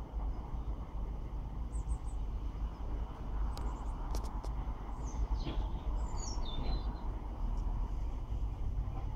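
Small birds chirping, a few quick gliding calls a little past the middle, over a steady low rumble.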